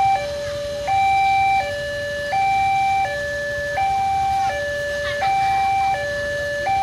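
Railway level-crossing warning alarm sounding its electronic two-tone signal, alternating a higher and a lower note about every three-quarters of a second, the warning that a train is approaching and the crossing is closed.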